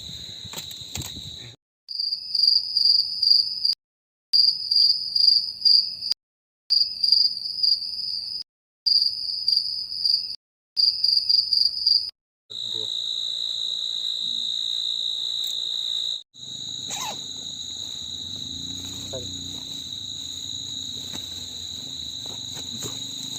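Night insects, crickets or similar, trilling in a steady, high-pitched drone. A middle stretch changes to rapid pulsed chirping, a little higher, and the sound is broken by several abrupt cuts to silence. A faint low hum runs beneath the trill near the end.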